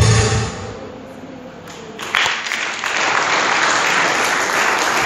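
The last notes of a live song die away, then an audience breaks into applause about two seconds in and keeps clapping steadily.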